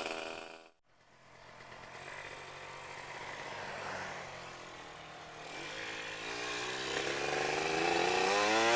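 Motorcycle engine pulling away under acceleration, its pitch and loudness climbing steadily through the last few seconds. It opens with a brief stretch of engine sound that cuts off to near silence about a second in.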